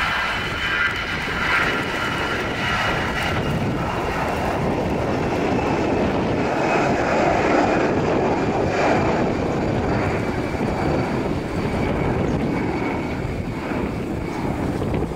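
Twin jet engines of an Airbus A320-family airliner at takeoff thrust: a steady roar with a high whine that slides slightly lower over the first few seconds as the jet rolls and lifts off.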